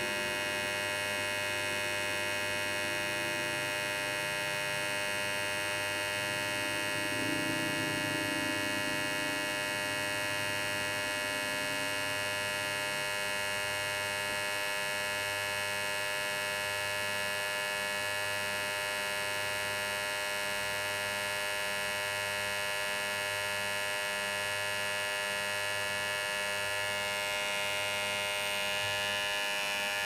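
Cordless electric hair trimmer running steadily: a continuous, even electric buzz with no change in pitch or level.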